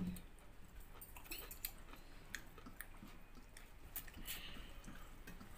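Faint eating sounds: chewing and fingers mixing rice and chicken curry on steel plates, with scattered small clicks and one sharper click at the start.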